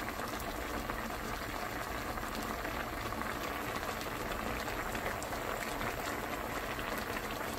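Spicy braised mackerel (godeungeo-jorim) sauce bubbling in a shallow pan: a steady fizz of many small popping bubbles.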